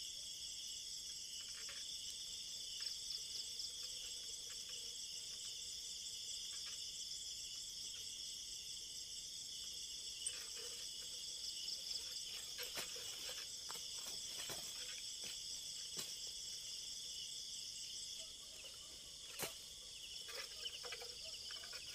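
Steady, high-pitched chorus of night insects trilling without a break. From about halfway through, scattered faint rustles and knocks come and go.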